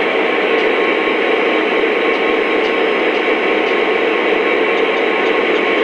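Lionel O-scale model trains running on the layout's track, their wheels and motors making a steady, even whirring rumble with faint light ticks now and then.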